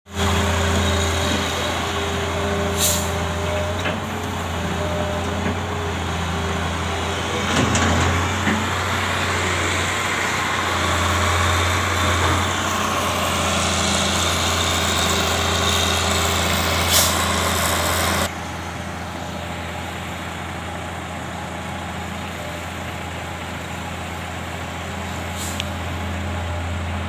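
Heavy diesel engines of a dump truck and a wheeled excavator running steadily at a loading site, with three short hisses of air. About two thirds of the way through, the sound drops suddenly to quieter and duller.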